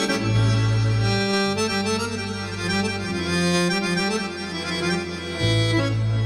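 Oriental dance music played live on a Korg Pa1000 arranger keyboard: a melody line over held bass notes.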